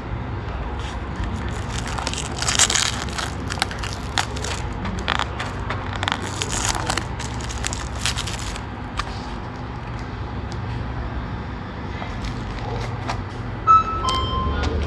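Crinkling and crackling handling noises in clusters over a steady low hum, typical of a packaged boxed lunch being handled. Near the end come two short tones, the second lower than the first.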